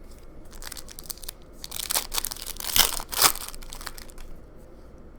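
Trading-card pack wrapper being torn open and crinkled, a crackly rustle building about a second in and peaking around the middle before dying away.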